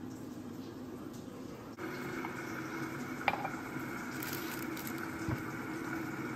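A steady electric hum from a kitchen appliance starts abruptly about two seconds in. A little after, a ceramic mug is set down on the hard countertop with a single sharp clink.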